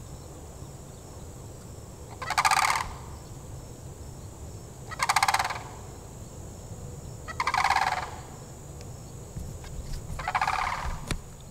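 An animal's call, a short rattling burst about half a second long, repeated five times at even gaps of about two and a half seconds.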